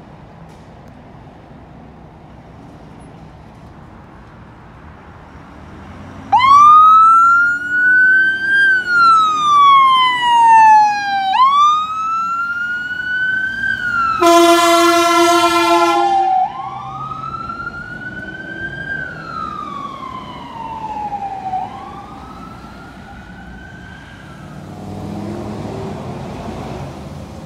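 Ambulance siren in slow wail mode, rising and falling in long sweeps, with a horn blast of about two seconds partway through as it passes, then fading as it drives away.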